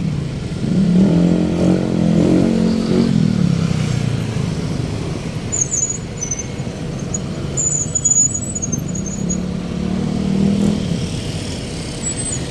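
Road traffic with motor vehicle engines passing, one swelling and fading in the first few seconds and another near the end, over a steady traffic hum. A run of high-pitched chirps sounds around the middle.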